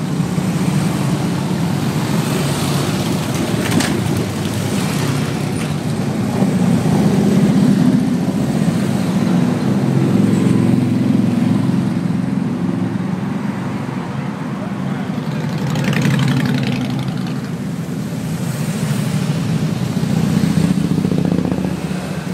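A line of touring motorcycles riding slowly past one after another, their engines running in a steady low drone that swells as bikes come close; a car passes among them.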